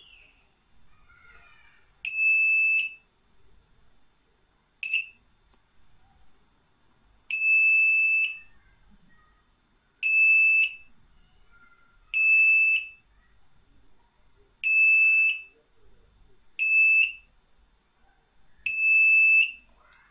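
Handheld EAS detector for 8.2 MHz RF tags beeping: eight loud, high-pitched electronic beeps, most half a second to a second long and one very short, at uneven gaps. The beep is its signal that it has picked up an RF security tag or label.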